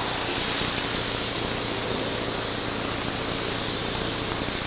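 Steady hiss with a low hum underneath and no distinct event.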